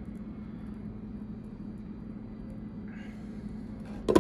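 Low steady hum, then near the end a couple of sharp clinks as the glass lid of a slow cooker is set down on the ceramic crock.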